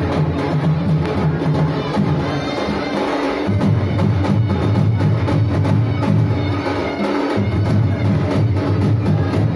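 Loud drum-led music with a steady beat of strokes over a low held tone that shifts twice.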